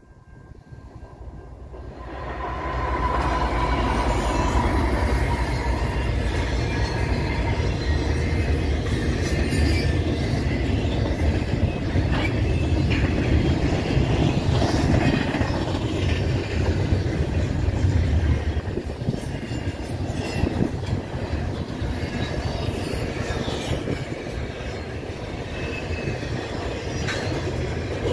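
CN double-stack intermodal freight train passing close by: a steady rumble and rattle of the cars on the rails, which gets loud about two seconds in, with a faint squeal of wheels.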